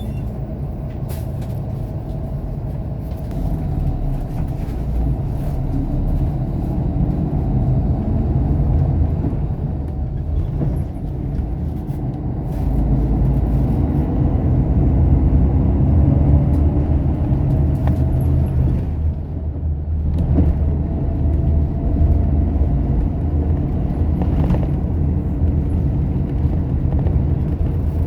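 A moving bus's engine and tyres make a steady low rumble, heard from inside the cabin. The rumble grows louder about halfway through, with a faint whine that drifts in pitch and a few light rattles.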